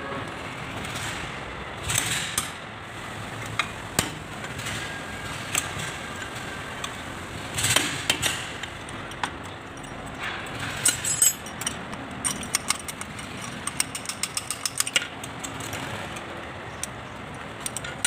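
Irregular metallic clinks, taps and scrapes of a steel drift worked inside the bore of a Kubota L2201 front-axle hub housing, with a quick run of light taps in the second half.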